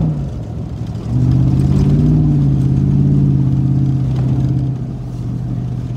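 GM full-size truck's engine pulling under acceleration, heard from inside the cab. The engine note drops away briefly near the start, then comes back about a second in and holds steady.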